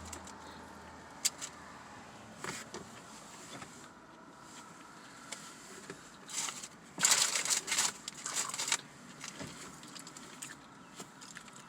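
Eating sounds from a sausage, egg and cheese McMuffin with a hash brown in it: quiet chewing with a few clicks, then a burst of crinkling and crunching about six to nine seconds in.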